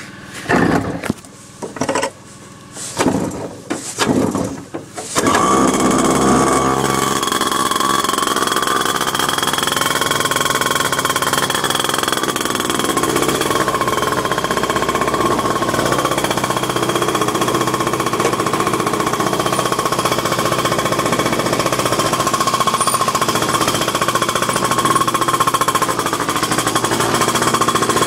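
Small two-stroke engine of an X-1 pocket bike starting: a few short sputters, then it catches about five seconds in and runs steadily with a buzzing rattle, its pitch rising and falling once shortly after.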